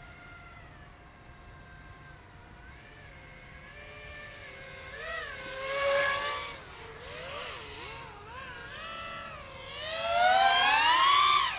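Flypro XJaguar racing quadcopter's motors and propellers whining, the pitch rising and falling with the throttle. It swells about six seconds in, then grows loudest and climbs in pitch near the end as the quad comes close, before dropping away sharply.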